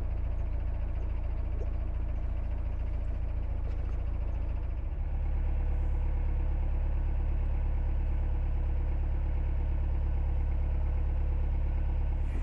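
A narrowboat's diesel engine running steadily as the boat cruises along the canal, a low, even hum that gets slightly louder about five seconds in.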